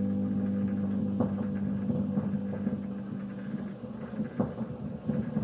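An electric guitar's last held chord ringing out through a Fender Ecco-Fonic echo unit, slowly fading. Toward the end it breaks up into faint, flickering echo repeats.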